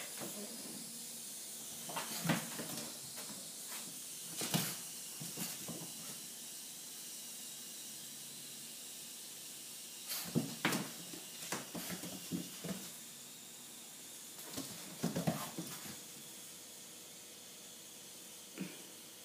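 Scattered clicks and taps of a puppy's claws on a tile floor during play, coming in short clusters, over a steady low hiss.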